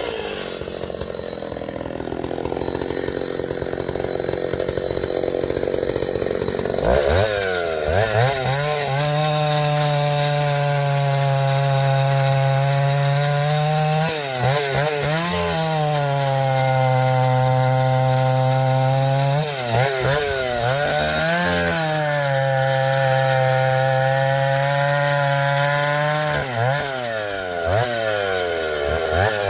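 Vintage Husqvarna L65 two-stroke chainsaw idling roughly, then opened up to full throttle about seven seconds in and cutting through ash firewood, the engine note dipping and recovering three times.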